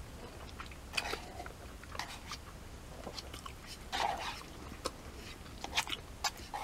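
Close-up mouth sounds of someone eating udon noodle soup: wet chewing and smacking clicks, with a short slurp-like smear about four seconds in.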